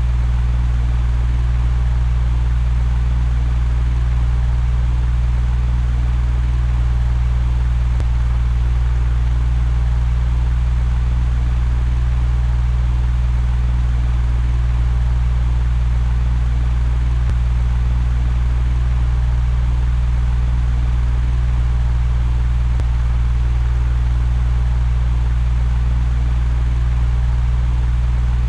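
Electric fan running steadily: a constant low hum with an even airy hiss over it.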